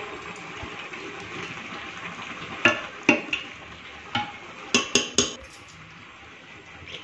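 A metal utensil knocking sharply against the rim of an aluminium pressure cooker as par-boiled rice is layered in: three knocks, a single one, then three more in quick succession.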